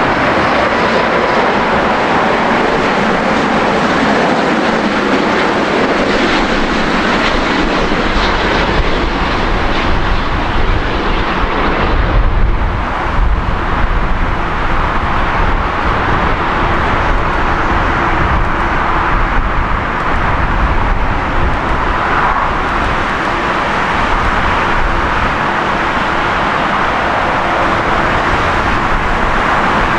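Airbus A350-900's Rolls-Royce Trent XWB jet engines on landing approach: a steady jet roar with rushing air. A deeper rumble swells about twelve to fourteen seconds in, as the airliner reaches the runway.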